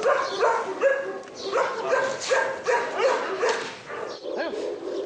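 Tibetan mastiffs barking over and over, short barks coming about two a second.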